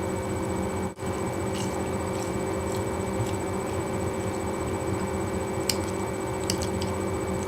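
Steady background hum and hiss with a few faint clicks, with a momentary dropout about a second in.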